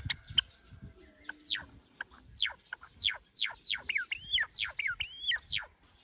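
A male silver Java sparrow singing: a run of quick chirps that each fall steeply in pitch, coming faster as the song goes on, with a few hooked notes that dip and rise again near the end.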